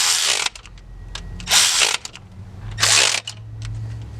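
Impact wrench run in three short bursts of about half a second each, hammering as it drives a fastener.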